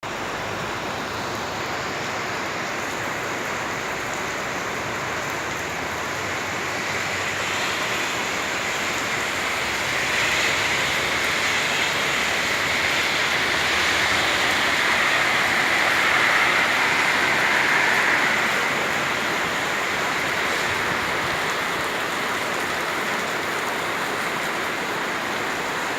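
Steady rush of water after heavy rain, growing somewhat louder in the middle before easing back.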